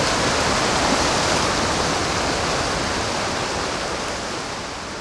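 Steady rushing noise that fades gradually over the last couple of seconds.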